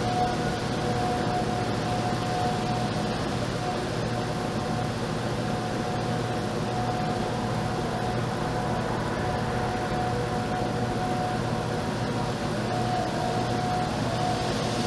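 Outdoor warning siren sounding a steady tone that swells and fades every few seconds, over a constant rushing background noise.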